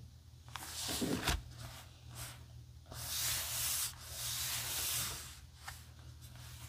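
A paper journal being closed: the pages rustle and the covers meet with a soft thump about a second in. Then hands rub and smooth across the kraft-paper cover for a couple of seconds, with a few small ticks near the end.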